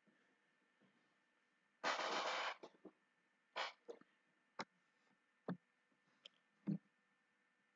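Quiet room tone with a brief noisy rush about two seconds in, then about seven single sharp clicks of a computer mouse spread over the next few seconds.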